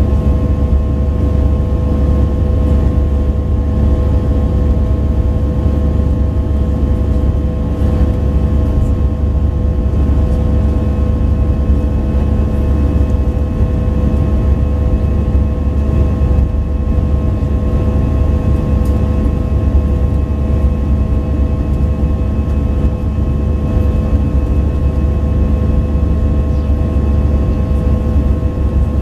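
Steady cabin noise of an Airbus A319 in flight, heard from a seat over the wing: a deep, even engine drone and airflow rumble with several steady whining tones on top.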